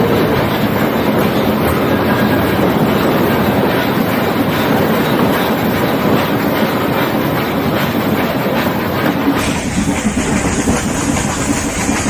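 Nilgiri Mountain Railway toy train carriage running along the line: a steady rumble and rattle with the clickety-clack of wheels over rail joints. The sound's character changes abruptly about nine seconds in.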